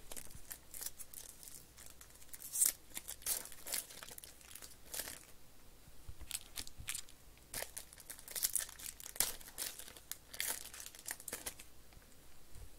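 Plastic sports-card pack wrappers crinkling and being torn open, with the rustle and slide of cards being handled, in irregular quick crackles.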